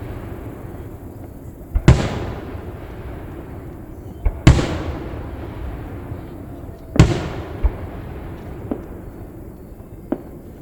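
Fireworks display: aerial shells bursting in three loud booms about two and a half seconds apart, each trailing off in a rolling echo, with lighter bangs between them.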